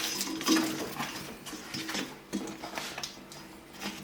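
Scattered clicks and light knocks of hand tools and metal printer parts being handled.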